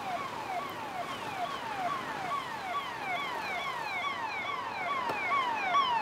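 Electronic alarm sounding a repeating falling whoop, about two and a half chirps a second, each sliding down in pitch, growing slightly louder toward the end.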